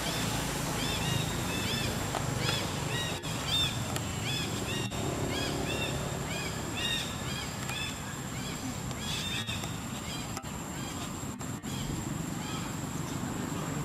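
Small birds chirping in many short, quick rising-and-falling notes over a low steady outdoor rumble; the chirping thins out after about ten seconds.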